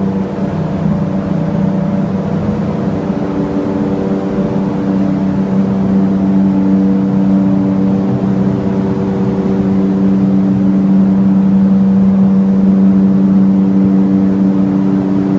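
A steady machine hum with a held pitch. It shifts slightly about five seconds in and grows a little louder toward the end.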